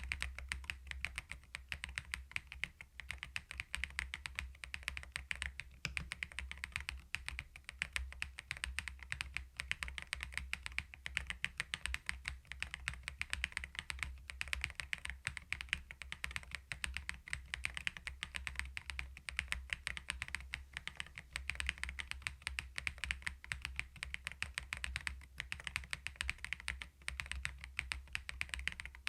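Continuous fast typing on a CoolKiller VIVID67 full-aluminium mechanical keyboard fitted with its stock Peach switches, a dense run of keystroke clacks with no pauses.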